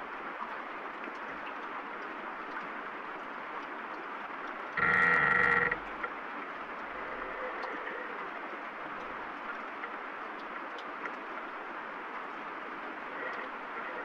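Steady rain falling. About five seconds in, a tree branch gives one loud creak lasting about a second.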